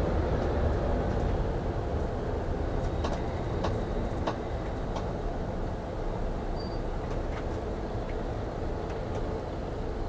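Car engine and road noise heard inside the cabin while moving slowly in stop-and-go traffic: a steady low rumble, with a few light ticks between about three and five seconds in and once or twice more later.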